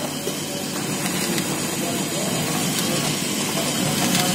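Automatic liquid pouch packing machine running: a steady mechanical hum with a few faint clicks.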